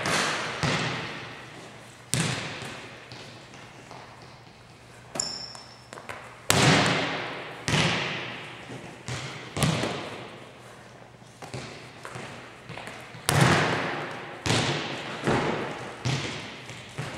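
Volleyball smacking off forearms and hands and bouncing on the hardwood gym floor: a string of sharp hits about one every second or so, each echoing around the large hall.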